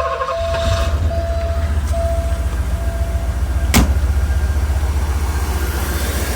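Porsche 928 V8 idling just after start-up, running with the shake of a misfire that the owner cannot trace to one cylinder. An intermittent beeping tone sounds over it for the first three seconds, and there is one sharp click near the middle.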